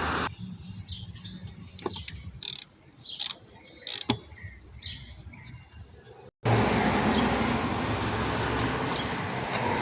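Scattered clicks and short squeaky chirps of a hand tool, likely a ratchet, working loose an intake hose screw in the engine bay. About six seconds in the sound cuts suddenly to a steady hiss-like background noise.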